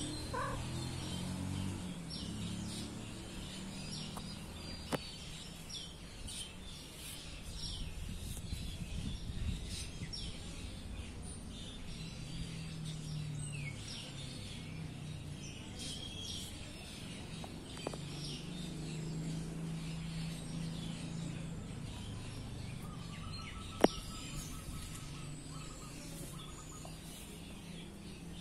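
Outdoor ambience of small birds chirping in short, quick calls throughout, over a low droning hum. A single sharp click stands out about three-quarters of the way through.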